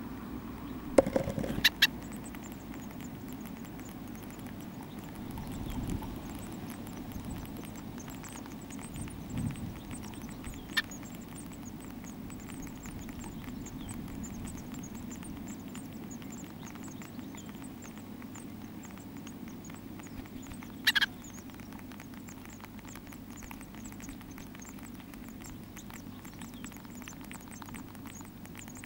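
Faint, high-pitched begging cheeps of great tit nestlings over a steady electrical hum, with a few sharp knocks, the loudest a second or two in and about two-thirds of the way through.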